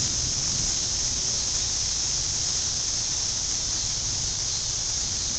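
Wind blowing ahead of an approaching thunderstorm. It buffets the microphone as an uneven low rumble under a steady high hiss.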